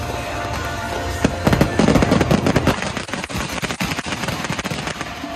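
Fireworks going off in a rapid barrage of bangs and crackles, thickest and loudest from about a second and a half in, over music.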